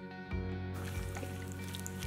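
Background music with steady held notes, over faint wet squishing and small clicks of green slime mixed with foam beads being kneaded by hand.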